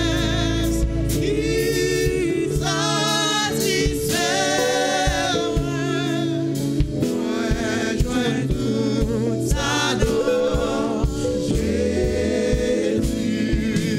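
A gospel worship song sung by several singers into microphones, with wavering held notes over sustained low instrumental notes.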